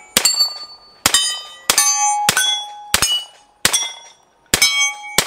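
Hi-Point 4595 carbine in .45 ACP fired eight times at a steady pace, about one shot every two-thirds of a second, with each shot followed by the ring of a steel target plate being hit. The last shot, near the end, empties the magazine.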